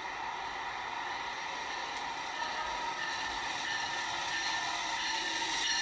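Amtrak P42DC diesel-electric locomotive approaching a station platform: a steady engine drone and rail noise that grows louder toward the end as the train nears.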